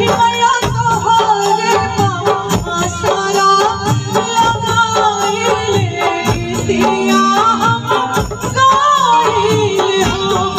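Live Bhojpuri Chhath devotional song: a woman singing a melodic line into a microphone over keyboard and hand-drum accompaniment with a steady beat.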